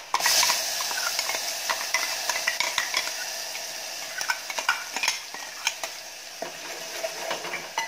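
Wet ground rasam paste hitting hot oil and tempering in a pot: a loud sizzle that flares up right at the start and then settles to a steady sizzle. A spoon clicks and scrapes against the mixer jar and the pot as the paste is scooped in.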